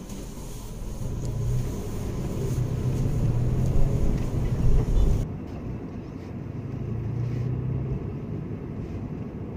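Small car's engine and road noise heard from inside the cabin as it pulls away, the low hum building over the first few seconds; a higher hiss cuts out abruptly about halfway through.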